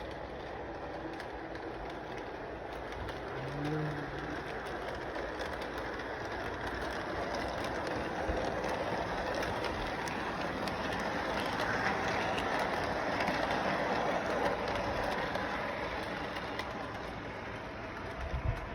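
Train running along the track, a steady rattling rumble that grows louder towards the middle and then eases off, with a brief low thump near the end.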